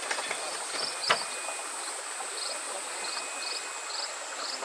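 Insects chirping in a steady chorus: a continuous high buzz with short pulsed chirps repeating about twice a second. A single sharp knock sounds about a second in.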